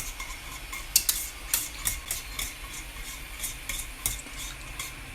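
A utensil stirring a thick, cooking chocolate mixture in a saucepan, scraping and clicking against the pan about two to three times a second, as the added butter melts into it.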